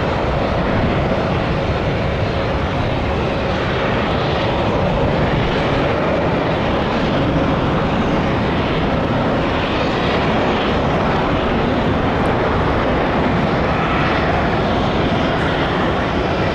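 Jet engines of a Boeing 777-200ER airliner coming in to land: a loud, steady rushing noise, with a faint whine in the first few seconds.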